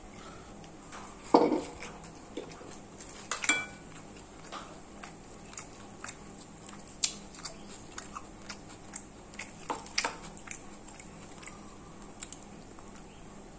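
Cutlery clinking and scraping on a plate during a meal, with scattered short clicks and knocks. The strongest is a knock about a second in, followed by a ringing clink a couple of seconds later. Chewing is heard between them.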